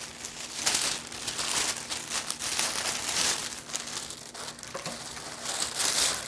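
Craft paper being crumpled and stuffed into a box, irregular crinkling rustles that come and go.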